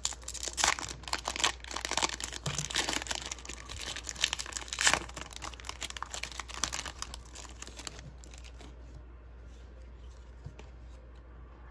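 Foil wrapper of a trading card pack being torn open and crinkled by hand, in quick irregular crackles and snaps, which die down about eight seconds in.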